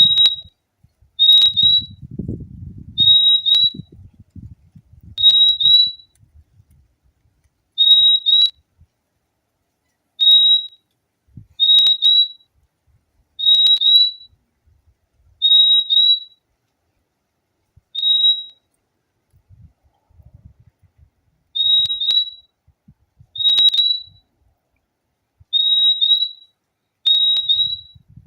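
Purple-throated euphonia (fim-fim) calling: clear, high whistled notes, mostly in pairs with a slight upward flick, repeated about every two seconds.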